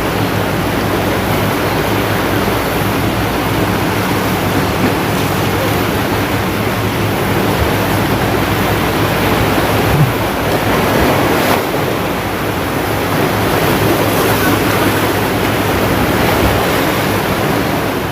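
Surf washing on a sandy beach, a steady rushing noise mixed with wind buffeting the microphone. A faint steady low hum runs underneath until about two-thirds of the way through.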